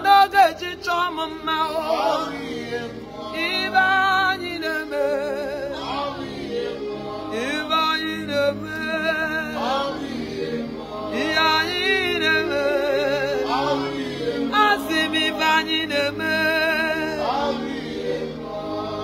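Gospel worship singing: a voice with wide vibrato in long phrases over steady sustained backing chords.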